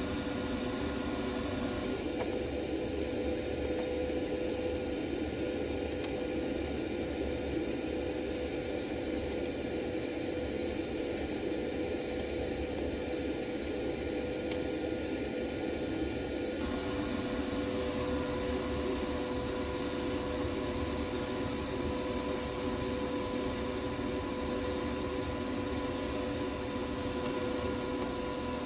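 TIG welding arc running steadily as a bead is laid on mild-steel plate ground clean of its mill scale: an even hiss with a constant hum in it. It is a smooth, stable arc with little spatter, as expected on clean base metal.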